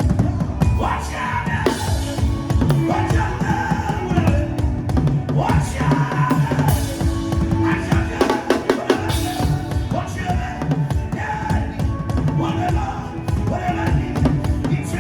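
Drum-led music: fast, dense drumming over steady sustained low notes, with voices singing.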